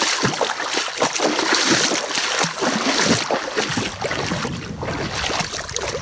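Water sloshing and splashing as someone wades through shallow water, a dense run of small splashes.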